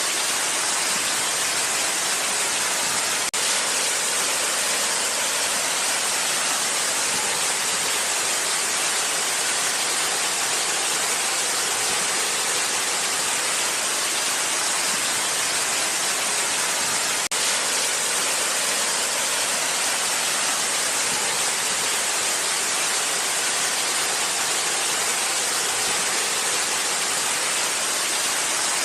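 Waterfall: a steady, dense hiss of rushing, falling water, broken twice by a brief click.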